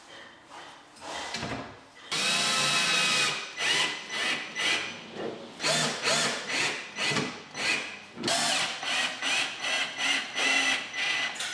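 Cordless drill driver running in a string of short bursts, driving screws into a chipboard panel; the first run, about two seconds in, is the longest, followed by several shorter ones.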